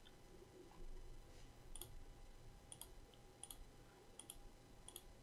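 Faint clicks of a computer mouse, about half a dozen spaced roughly a second apart, over near silence.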